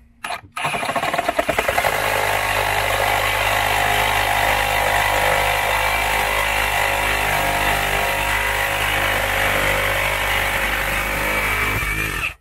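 Reciprocating saw (Sawzall) cutting through old wood framing where a large spike or rod is fastened: a few short trigger stabs, then running steadily at full speed until it stops abruptly near the end.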